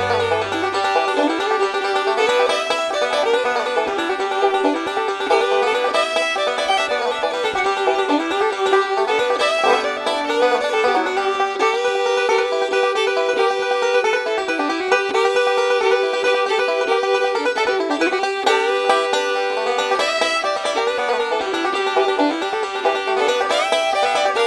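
Background music: bluegrass-style banjo with other plucked strings, playing steadily.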